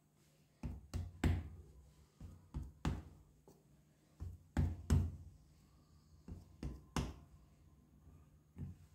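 Hands patting and slapping a soft block of damp multani mitti (Fuller's earth) clay on a board to shape it into a bar: a string of irregular dull thuds.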